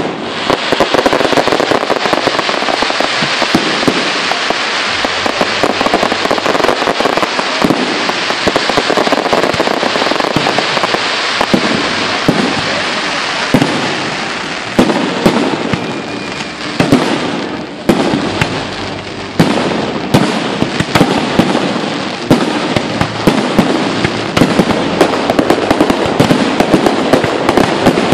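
Aerial fireworks display: a dense, continuous barrage of shell bursts and crackling, with rapid sharp bangs throughout and a few louder reports standing out partway through.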